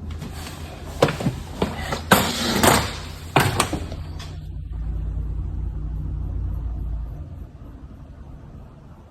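A run of sharp knocks and clatter over the first four seconds or so, then a steady low rumble lasting about three seconds.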